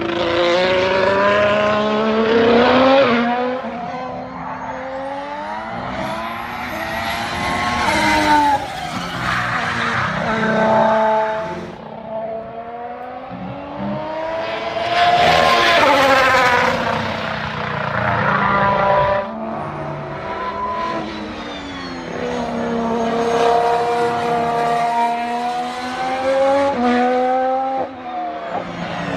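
Honda turbocharged V6 Formula One power unit at racing speed. Its engine note climbs in pitch and drops again several times as the car accelerates and slows.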